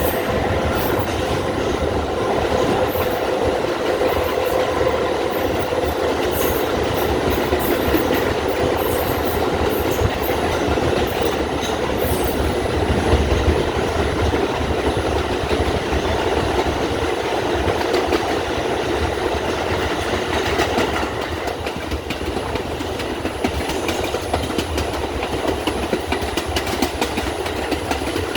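R142 subway train running at speed, heard on board: steady wheel-and-rail rumble with scattered clicks over the rail joints. It drops a little in level about three-quarters of the way through.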